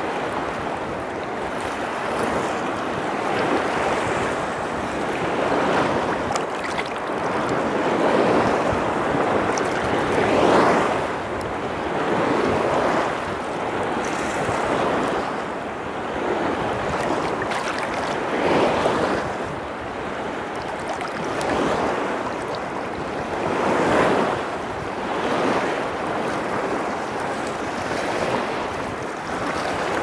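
Small sea waves washing and slapping in shallow water, the noise swelling and falling every few seconds, with wind buffeting the microphone.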